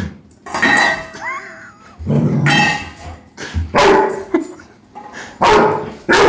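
Young Airedale terrier barking repeatedly, several loud, sharp barks about a second or so apart, at a steel food bowl that holds his ball.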